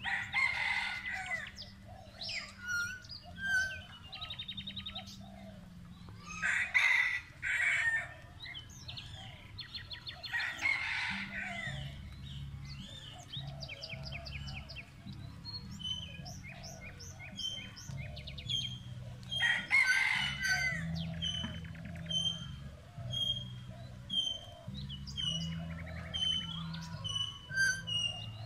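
Several birds calling: many short repeated chirps and trills, with four louder, longer calls of about a second each spread through.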